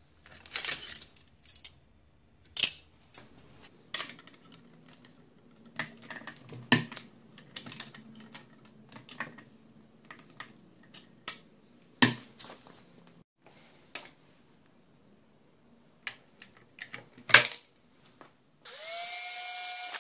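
A series of separate metallic clinks and clanks as steel rods and tools are handled. Near the end an angle grinder starts and runs with a steady whine, its disc grinding a steel rod.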